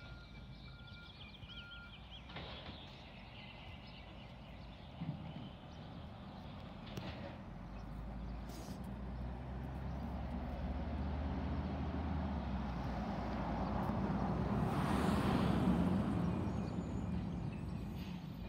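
Waste Management garbage truck working the street: its engine rumble grows steadily louder as it comes closer, peaking about three-quarters of the way through, then eases slightly. A few evenly spaced backup-alarm beeps sound at the very start.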